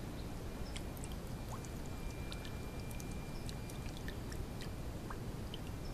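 Faint, scattered drips and ticks of water falling off a just-lifted, wet ABS-pipe camera housing, over a low steady background hum.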